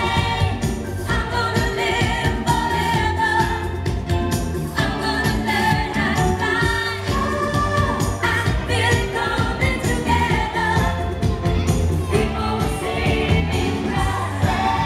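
Pop song played loudly, with singing over a steady beat with strong bass.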